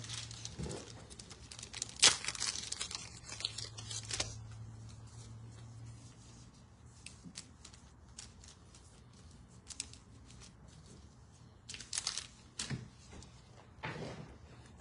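Packaging being torn and crinkled by hand in a few rustling bursts, the loudest about two seconds in, then scattered light clicks and more short rustles near the end. A faint low hum runs under the first few seconds.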